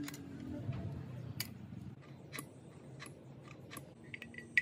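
Scattered light clicks and taps of a spanner and small metal parts being handled while a bench drill is reassembled, about one every second, with a few short high chirps near the end.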